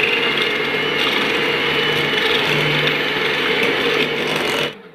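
Electric hand mixer running steadily with a high motor whine, its twin beaters churning set yogurt made from cream into butter. It switches off near the end.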